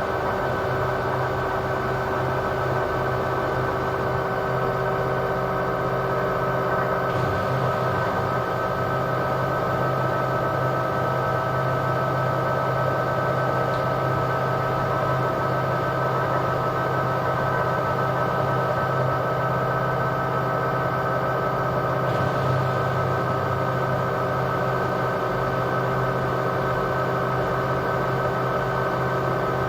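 LG washing machine in its spin cycle, the drum spinning at a steady speed: an even motor whine over a low hum, with no change in pitch.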